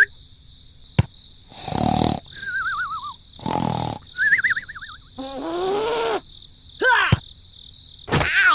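A string of short sound effects: two warbling whistle tones, short hissing bursts of noise, a low moaning voice-like sound, and a few sharp clicks, over faint steady high-pitched tones.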